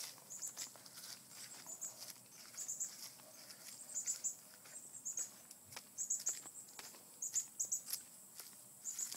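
Small birds chirping in short, high two- and three-note bursts again and again, over scattered light clicks and rustling.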